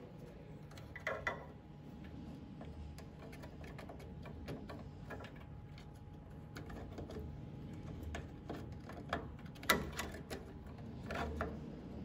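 Scattered light clicks and knocks, the sharpest about a second in and near the ten-second mark, over a faint steady hum.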